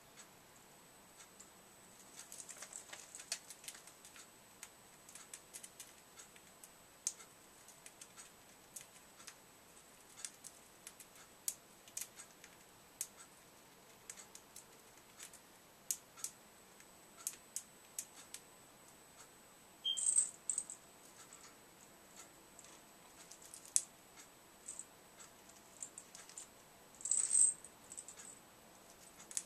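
Small parrotlet moving about a wire cage: irregular light clicks and rattles of beak and claws on the metal bars and hanging toys. There are two louder short scuffles in the last third.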